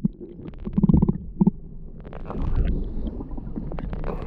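Water heard through a submerged camera's microphone: a muffled low rumbling and gurgling with scattered clicks and knocks, and a couple of louder low thuds about a second in.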